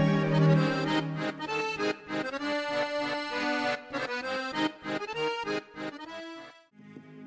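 Accordion music playing a rhythmic tune, which dies away about half a second before the end.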